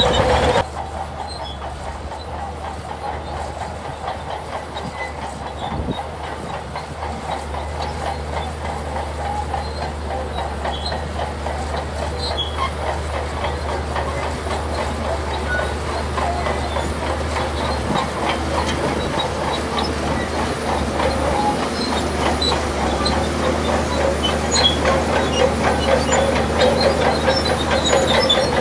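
Shantui DH17-C2 crawler bulldozer at work: its diesel engine runs steadily under a dense clanking of the steel tracks, growing gradually louder.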